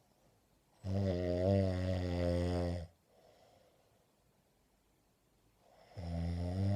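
A sleeping woman snoring loudly: two long, low, buzzing snores, each about two seconds, the second starting some five seconds after the first, with a faint breath between them.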